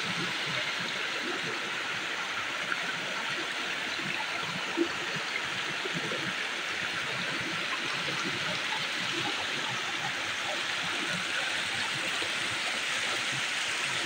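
Shallow rocky river running over stones and spilling in a small white-water cascade between boulders: a steady rush of water.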